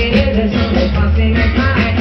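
Reggae played loud through a sound system: a heavy, steady bass line with a singer's voice over it.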